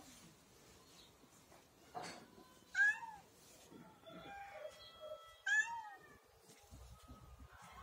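Domestic cat meowing twice, two loud calls about three seconds apart, as it waits to be fed.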